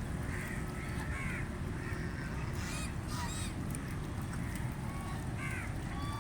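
Ducks calling: short, scattered quacks throughout, over a steady low background rumble.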